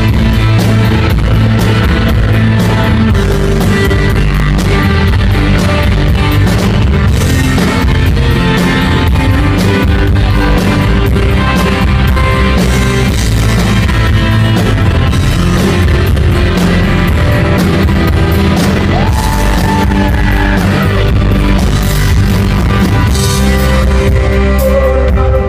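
A rock band playing loudly on stage: electric guitar and drums.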